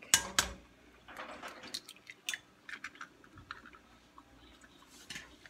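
An egg cracked against the edge of a bowl: two sharp taps at the start, then quieter shell crackling, squishing and small clicks as it is broken open and emptied in.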